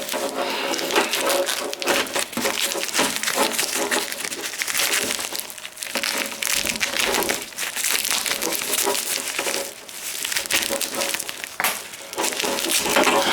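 Packing material being handled and pulled apart while a box is unpacked: a continuous, irregular crinkling and rustling with dips around six and ten seconds in.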